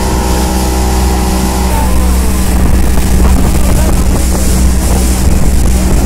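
A speedboat's outboard motor running at speed, a steady low drone, with wind buffeting the microphone.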